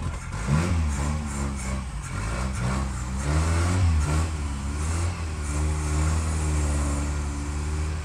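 Lifted first-generation Toyota pickup's engine revving up and down again and again under load on a steep wet rock ledge, its 35-inch all-terrain tyres scrabbling without getting traction.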